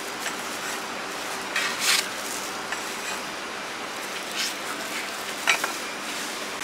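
Food sizzling steadily on a hot metal pan, with a metal utensil clinking and scraping against the pan several times as it is stirred.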